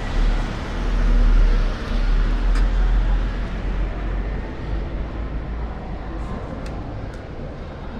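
Outdoor city street noise with wind buffeting the microphone, a low rumble that is strongest in the first couple of seconds, and a few faint ticks.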